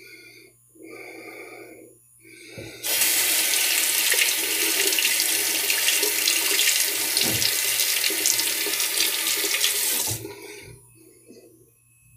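Water tap running steadily into a sink for about seven seconds, starting about three seconds in and shutting off near the end, as a safety razor is rinsed mid-shave. It is preceded by a few short scraping strokes of the razor through stubble.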